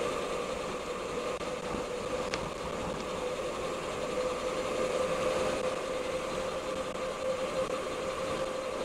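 Steady road noise of a bicycle being ridden along a wet highway: a constant hum from the tyres on the asphalt over a hiss of spray and wind.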